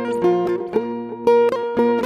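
Music on a plucked string instrument, picking out a run of notes with a sharp attack on each.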